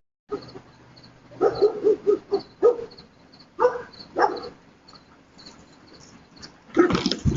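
A dog barking in short bursts: a quick run of barks about a second and a half in, two more about a second later, and a louder burst near the end.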